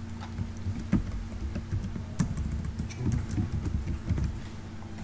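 Scattered keystrokes and clicks on a computer keyboard and mouse as a value is typed into a table cell, over a steady low hum.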